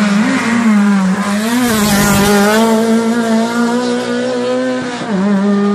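Rally car engine running hard at high revs, its pitch held steady with brief dips about a second in and near the end.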